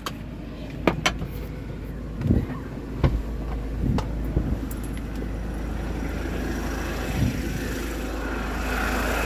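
A vehicle's engine idling with a steady low hum, broken by a few scattered knocks and clicks. A soft hiss rises near the end.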